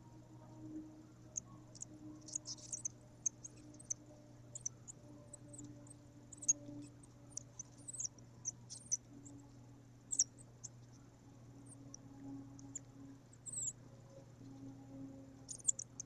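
Eaglet chicks in the nest giving short, high-pitched squeaking peeps at irregular intervals, over a steady low hum.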